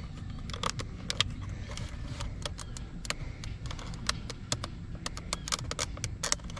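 Small irregular plastic clicks and taps as a rear door panel's power window switch is worked loose by hand and tool, over a steady low rumble.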